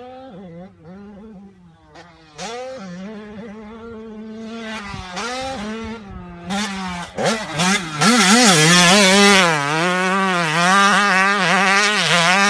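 Dirt bike engine revving up and down over and over as the rider works the throttle around the track, its pitch rising and falling every half second or so. It gets much louder and harsher about eight seconds in.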